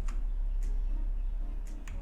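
Keys of a Redragon Fizz K617 60% mechanical keyboard with pudding keycaps pressed a handful of times, separate clicks spaced irregularly, over a steady low hum.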